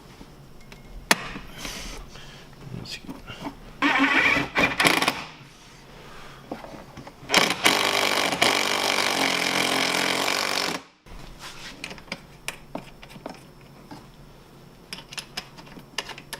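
Handheld power tool running in two bursts, a short one about four seconds in and a longer, steady one of about three and a half seconds that cuts off sharply. Light metallic clicks and taps of tools and hardware come before and after.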